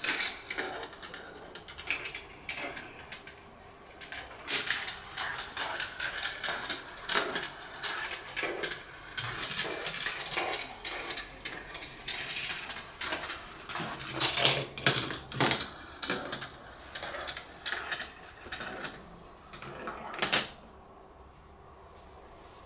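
Marbles running through a GraviTrax plastic marble run: many overlapping irregular clicks and rattles as balls roll along the rails and drop through the plastic tiles. A sharp loud click comes about 20 seconds in, and then the clatter dies away.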